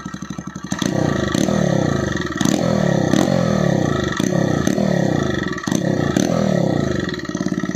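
TVS Raider 125's single-cylinder engine running through a cut-down aftermarket Akrapovic exhaust, revved in neutral. It idles, then about a second in it is blipped repeatedly, about half a dozen revs rising and falling with sharp cracks between them. It settles back to a steady idle near the end.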